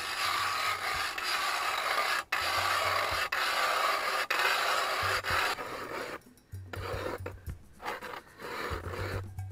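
Hand-crank ice auger boring through lake ice: the blades shaving ice make a steady rasping scrape, which turns choppier and more broken after about six seconds.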